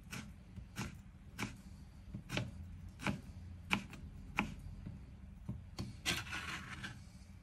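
Chef's knife chopping orange peel into thin strips on a plastic cutting board, the blade knocking on the board about every two-thirds of a second. About six seconds in, the flat of the blade scrapes across the board to push the strips aside.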